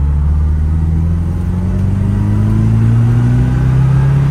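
1964 Morris Mini 850's little 850 cc A-series four-cylinder engine, with a single SU carburettor and a larger-bore exhaust, heard from inside the cabin while driving. It pulls up through the revs with a steadily rising note that drops back near the end.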